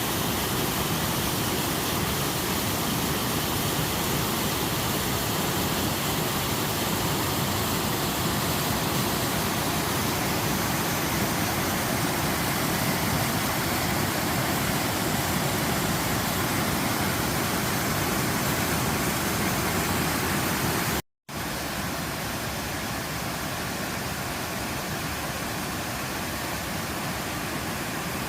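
Waterfall: a steady rush of falling water. It drops out for a moment about three-quarters of the way through, then carries on a little quieter.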